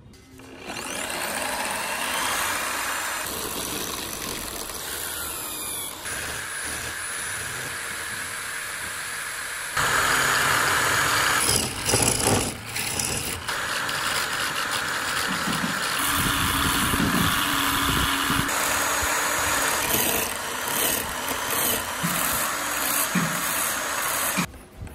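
An electric hand drill serving as a lathe runs steadily, spinning a wooden wheel while a chisel scrapes and cuts it, then sandpaper is held against the turning wheel. The noise changes abruptly several times as the work moves on.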